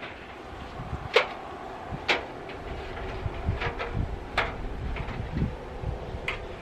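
Aluminium stepladder being moved and set against a corrugated metal silo wall: a handful of sharp clanks and knocks over a low steady rumble.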